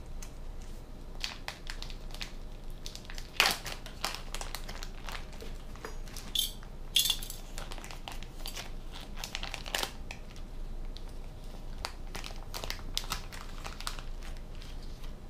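Plastic deli-meat bag crinkling and rustling as ham slices are pulled out of it with tongs, with a few louder crackles of the plastic about three and a half, seven and ten seconds in.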